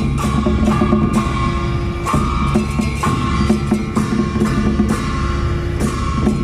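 A gong-and-drum procession troupe playing: a large barrel drum beaten with sticks under many hand-held brass gongs struck with mallets in a steady beat. The gongs ring between strokes, their ringing renewed about once a second.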